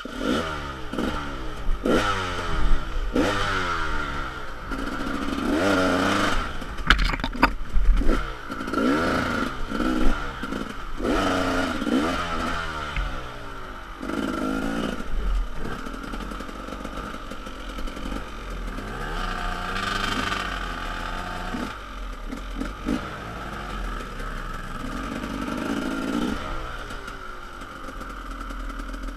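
KTM enduro motorcycle engine revving up and down over and over as it is ridden through mud and over rocks, with sharp knocks and clatter from the bike hitting the rough ground, most of them in the first half.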